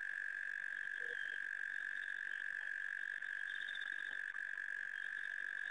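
Night chorus of calling animals: a continuous shrill trill, with a faster pulsing trill above it that comes and goes.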